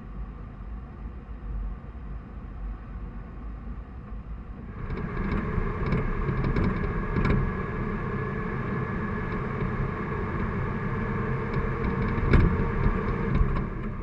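Toyota Land Cruiser HZJ75's 4.2-litre inline-six diesel and drivetrain running as the truck drives a rough dirt and gravel track, a steady low rumble. About five seconds in it becomes louder, with a steady whine over the rumble and scattered knocks and rattles from the rough surface.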